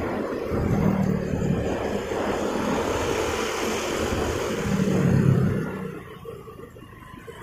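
Wind rushing over the microphone together with motorcycle engine and street traffic noise while riding. The low engine hum swells twice, and the whole sound drops off about six seconds in as the bike slows down.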